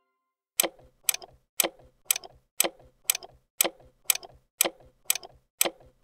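Ticking-clock sound effect, two even ticks a second, starting about half a second in, used as a countdown before the next quiz question.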